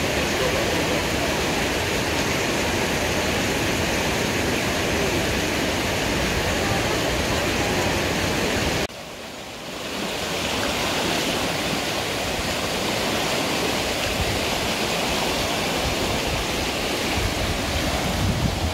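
Swollen brook in flood rushing and churning, a steady, loud rush of water. It drops out suddenly about halfway through and comes back within a second or so.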